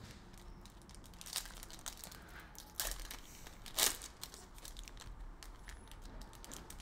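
Foil wrapper of a Panini Prizm football card pack being torn open and crinkled by hand: irregular crackling, with the loudest crackle a little before four seconds in.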